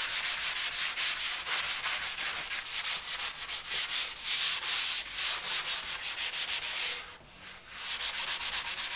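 Sanding sponge scrubbing dried drywall joint compound, a hissy rasp in quick back-and-forth strokes of about five a second, detail-sanding the finish coat around an electrical box patch. The strokes stop briefly about seven seconds in, then start again.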